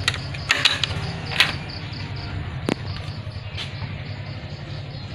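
Crickets chirping in a steady, rapid pulse. There are a few clicks and rustles in the first second and a half, and single sharp clicks later on.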